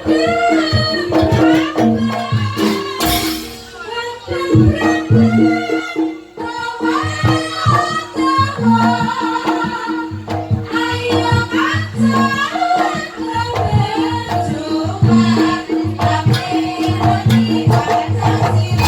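Campursari music with a singing voice over a band and a steady drum beat.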